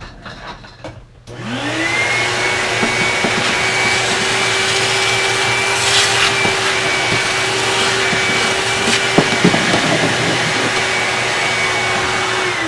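Shop vacuum switched on about a second in, its motor spinning up to a steady whine with a rush of air and running evenly as the nozzle clears sanding dust off a bare guitar fingerboard. A couple of light knocks late on; at the very end it is switched off and the pitch starts to fall.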